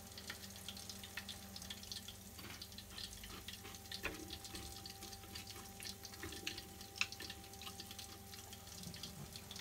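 Battered king prawns frying in a saucepan of hot oil: a faint, steady crackle of small popping ticks, with a faint steady hum underneath. A couple of light clicks stand out about four and seven seconds in.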